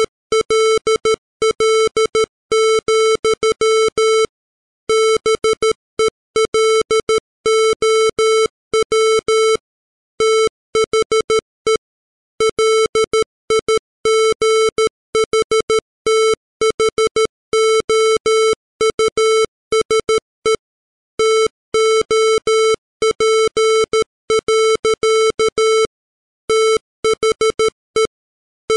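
Computer-generated Morse code at 13 words per minute: a 440-hertz square-wave tone keyed on and off in dots and dashes, with short gaps between letters and longer pauses between words.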